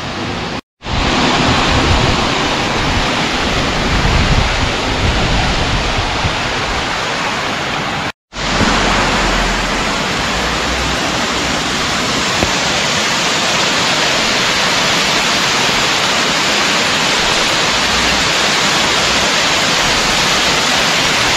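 Waterfall pouring, a steady rush of falling water. It cuts out suddenly twice for a fraction of a second and comes straight back.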